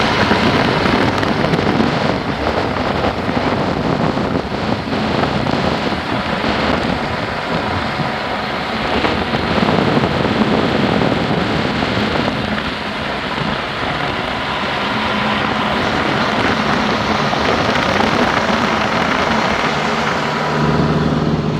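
Strong blizzard wind blowing across the microphone: a loud, steady rushing noise with a fine crackle throughout.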